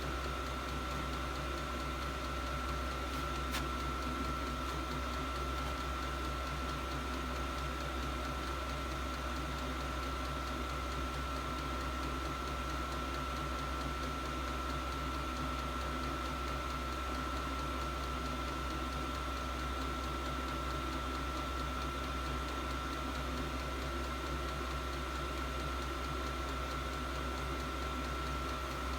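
8 kW 12-volt all-in-one diesel air heater running steadily, its blower giving an even whir with a steady high whine over a low hum.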